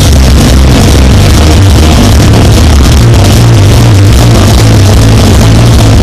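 Live punk rock band playing loud, with electric guitar, bass and drums and a heavy booming low end, heard from the audience in an overloaded recording.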